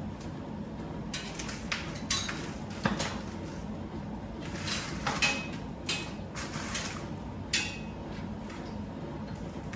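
Intermittent metal clinks and knocks, about ten in all, as steel parts and tools are handled while the wheels are fitted back onto a steel welding cart. Two of the louder clinks, about five and seven and a half seconds in, ring briefly.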